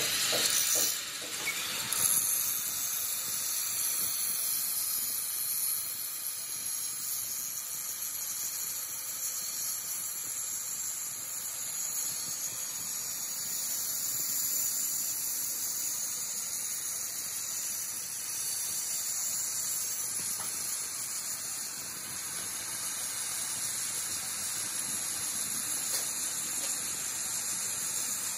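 Angle grinder's abrasive disc grinding a steel axle shaft as it turns in a lathe. A steady high hiss with squealing tones, settling in about two seconds in.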